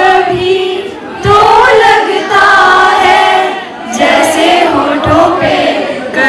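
A woman singing into a microphone over a hall's PA, in phrases with long held notes and short breaks between them.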